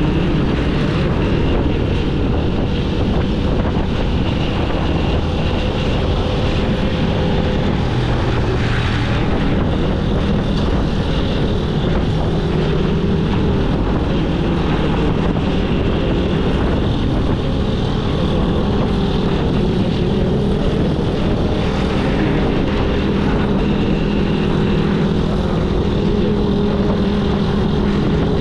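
Honda CG 125's single-cylinder four-stroke engine running steadily as the motorcycle cruises, heard from the rider's seat.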